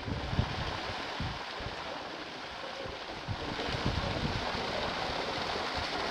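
Steady rain falling on paved ground, an even hiss, with gusts of wind buffeting the microphone as low rumbles. The rain grows a little louder about three and a half seconds in.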